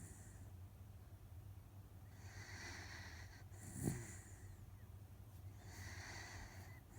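Miniature dachshund snoring in deep sleep: slow, hissy breaths about every three and a half seconds, with a brief low thump about halfway through as the loudest moment.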